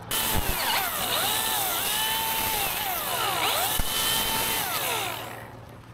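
Top-handle chainsaw cutting into a dead cherry trunk, its pitch rising and falling as it bites into the wood. It starts abruptly and fades out near the end.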